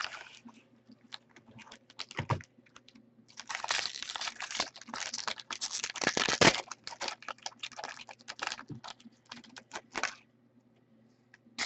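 Trading card pack wrapper crinkling and tearing, a dense stretch a few seconds in. Scattered light clicks and rustling of cards being handled come before it and after, dying away near the end.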